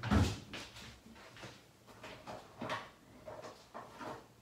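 Someone rummaging for a cotton swab among small household items. There is a thump right at the start, then a string of light knocks and rustles.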